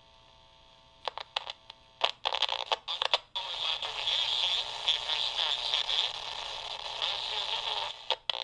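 3D-printed crystal (foxhole) AM radio heard through a small amplifier speaker while it is tuned by sliding foil along its coil. Scattered crackles and clicks give way, about three seconds in, to a steady hiss of static in which a station comes through faintly at times. This is the test of whether cleaning the oxidised copper wires has improved reception.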